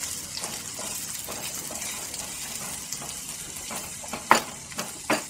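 Sliced onions sizzling in oil in a non-stick frying pan as they are lightly fried, stirred with a spatula that scrapes and taps against the pan now and then; the sharpest tap comes about four seconds in.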